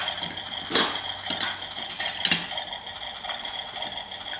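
Dishes and utensils being handled in play cooking: a few scattered clacks and clatters, the loudest about a second in and again past the two-second mark.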